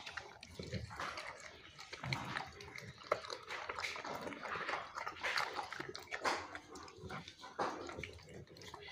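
Pit bull eating boiled chicken wings from a steel bowl: irregular chewing and crunching on the bones, with small clicks and wet mouth sounds at an uneven pace.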